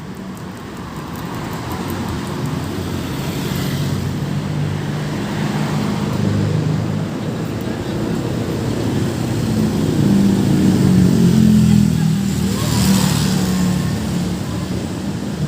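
Road traffic with a heavy vehicle's engine running close by, growing louder to a peak about ten seconds in, then easing off. There is a brief rush of noise near the end.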